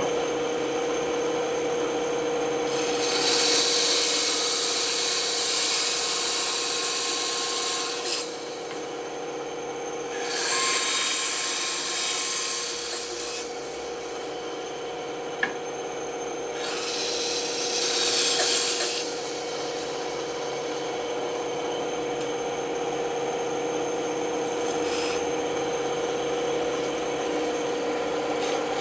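Band saw running with a steady hum while its blade cuts into wood in several passes of a few seconds each: a hissing rasp about three seconds in, again about ten and seventeen seconds in, and once more at the very end.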